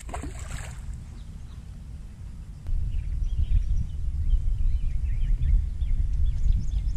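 Wind buffeting the microphone as an uneven low rumble, stronger from about three seconds in, with faint bird chirps over it.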